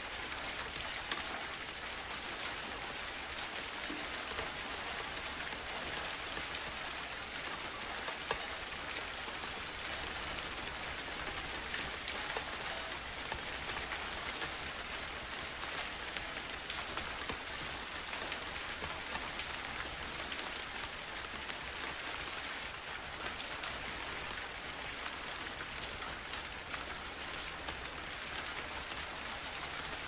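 Steady rain falling, an even hiss dotted with many small clicks from individual drops.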